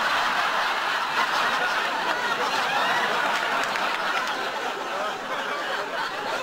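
Studio audience laughing: many people's laughter together, loud and sustained, easing slightly near the end.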